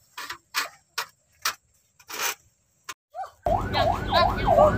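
A knife blade being sharpened in short scraping strokes, roughly two a second with uneven gaps. About three and a half seconds in, it cuts abruptly to a loud wailing siren that rises and falls about twice a second.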